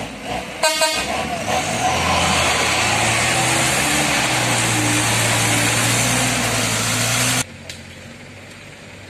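A short truck horn toot, then a loaded diesel truck's engine revving hard and steady under load as it pulls through deep mud, cutting off suddenly about seven seconds in.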